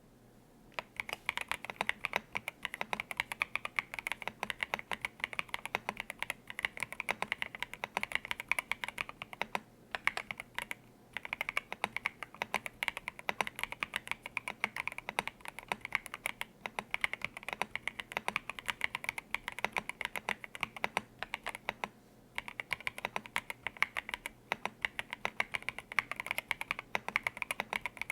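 Continuous fast typing on a stock, unmodified Epomaker RT100 mechanical keyboard with Epomaker Flamingo switches: a dense stream of key clacks that starts about a second in, with brief pauses twice.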